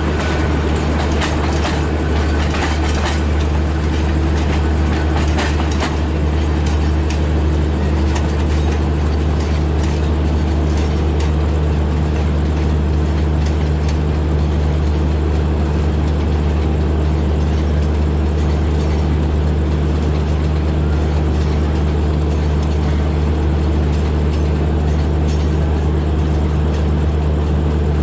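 Diesel locomotive engine idling with a steady, deep hum. In the first few seconds the wheels of passing coaches click over the rail joints.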